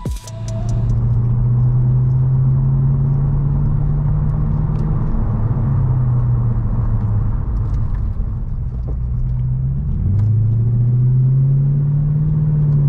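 Second-generation Lexus GS driving, heard from inside the cabin: a steady engine and road rumble, the engine note dipping about ten seconds in and then climbing again.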